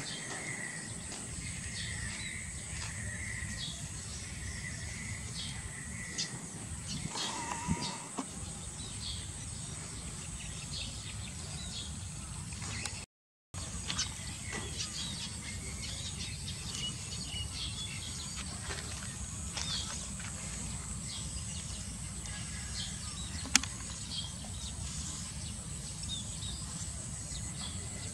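Outdoor ambience: a steady high insect buzz with scattered short bird chirps over a low rumble. The sound cuts out for a moment about halfway, and a single sharp click is heard near the end.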